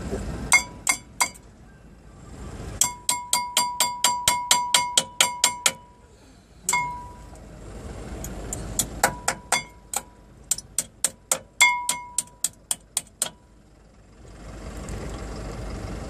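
Runs of sharp metal-on-metal taps, each ringing briefly, coming about four a second with short pauses between the runs, from hammering at a bent brake pad clip on a bus brake.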